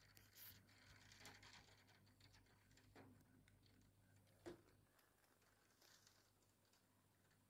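Near silence: very faint rain pattering on a window pane, heard from indoors, with a few light taps, the sharpest about four and a half seconds in, over a low steady hum.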